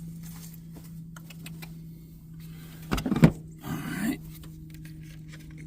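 A couple of sharp clunks about three seconds in, then a short rattle, as tools or parts are handled and set down, over a steady low hum.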